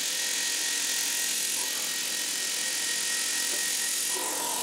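CNC mill drilling the centre holes in brass cam nuts, heard as a loud, steady hiss with a faint high tone, no change in pitch or rhythm.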